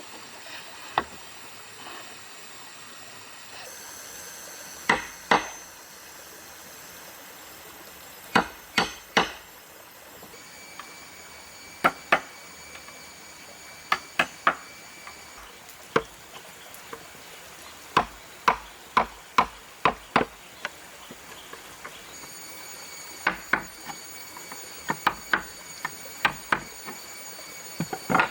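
Hammer blows on wood: sharp single knocks, often two or three in quick succession with pauses of a second or more between groups.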